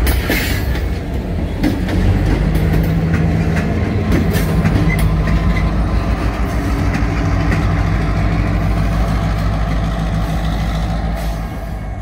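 Loaded freight cars rolling past at close range with steady wheel and rail noise, then a diesel locomotive passes, its engine running with a steady low drone under the wheels. The sound eases off near the end as the train moves away.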